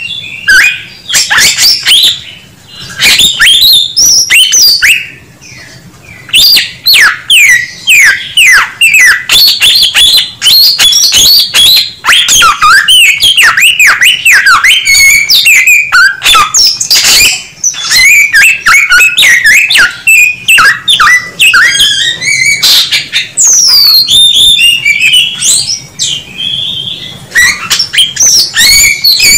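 Samyong bird singing loudly and without let-up: a fast, varied stream of chirps, whistles and sweeping notes, broken by a couple of short pauses in the first few seconds.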